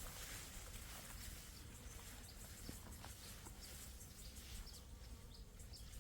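Faint natural outdoor ambience of insects, with short high chirps repeating every half second or so from about halfway through.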